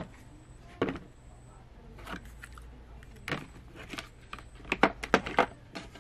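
Cordless drill battery pack and charger handled out of a hard plastic carry case and set down on a wooden table: scattered light knocks and clatters, with a quick run of them near the end.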